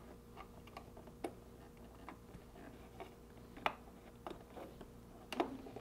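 Faint, scattered small plastic clicks and taps as fingers handle a wire-harness connector and push it onto an ice maker emitter circuit board; the sharpest click comes about three and a half seconds in.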